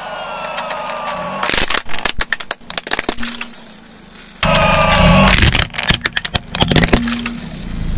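A car tyre rolling over a plastic toy fighter jet, the plastic breaking in a rapid string of sharp cracks and snaps. The crush is heard twice, each time opening with a steady rushing noise and a slowly falling whine before the cracking.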